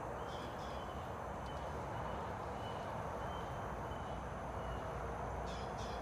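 Steady outdoor ambience, an even hiss with a low rumble under it. Over it a bird gives a faint short high note again and again, with a few quick chirps near the end.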